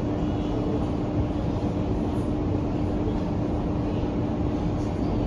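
Steady running noise inside a CRRC Changchun Type A metro car, heard from the passenger saloon: a low rumble with a steady hum held at one pitch.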